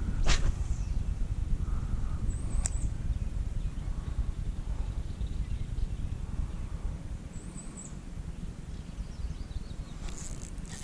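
Faint birds chirping over a steady low rumble, with two short high chirps about two and a half and seven and a half seconds in, and a couple of sharp clicks near the start.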